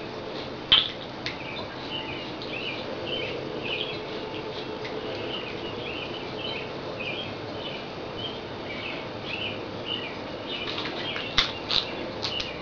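A comb drawn again and again through short, freshly wetted waved hair at the crown, in quick even strokes of about two or three a second, each a light scratchy rasp. A few sharp clicks come near the end.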